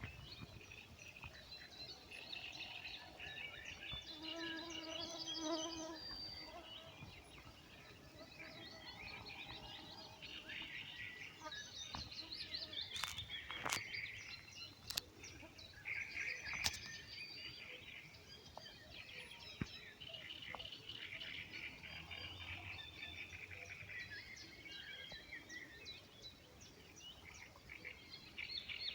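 Songbirds chirping and singing, faint, with many short overlapping calls and trills and a few sharp clicks.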